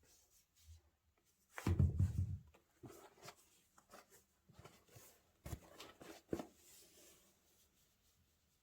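Handling noises as trainers and their packaging are unboxed: rustling and light knocks, with a dull thump about two seconds in and two sharper knocks around five and a half and six seconds.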